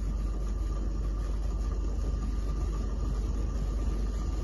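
Steady low hum and hiss with a faint high whine from a stainless steel pot of water heating on the hob, not yet at the boil.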